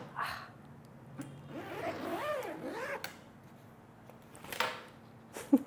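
Hands working at an opened hard-shell carry-on suitcase: rustles of its fabric lining and a short zip from an inner compartment, with a few brief rising-and-falling pitched sounds in the middle and a short loud low sound near the end.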